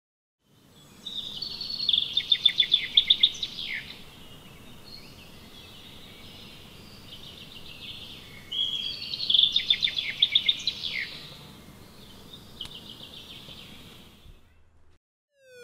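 A songbird singing: a phrase of quick high notes running into a rapid trill that ends on a falling slur, repeated once, then a softer short phrase, over a faint steady outdoor hush.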